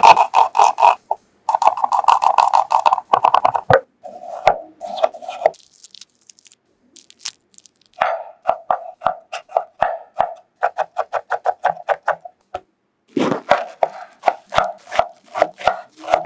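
Chef's knife chopping red onion, tomato and iceberg lettuce on a wooden cutting board: fast runs of crisp chops, about five a second, with a pause of a couple of seconds in the middle.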